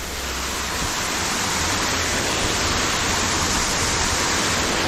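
Steady, loud rushing of water, an even hiss with no breaks.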